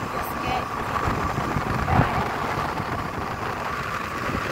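Motor scooter riding along a street: the engine runs steadily with a thin steady whine over it, while wind buffets the microphone. A single thump about two seconds in.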